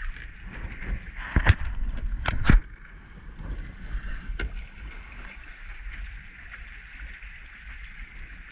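Wind buffeting the microphone and choppy water lapping against a kayak hull, with a few sharp knocks between about one and a half and two and a half seconds in.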